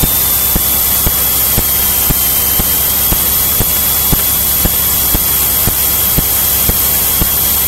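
Steady engine and airflow noise of a Cirrus SR20 single-engine light aircraft in formation flight, heard as an even rushing hiss. A faint high whine runs through it, with light clicks about twice a second.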